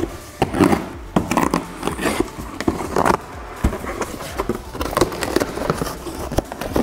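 Cardboard shipping box being cut open with a sharp axe blade and its flaps pulled back: irregular scraping and rustling of cardboard and packing tape, with small knocks.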